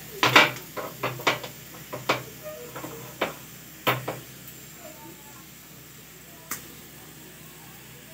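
Metal spatula scraping and knocking against a tawa as it presses down a frying onion paratha: a quick, uneven run of scrapes and knocks for about four seconds, then a single knock a couple of seconds later.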